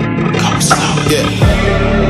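Background music: a hip-hop track with sharp drum hits, and a heavy bass line coming in about three quarters of the way through.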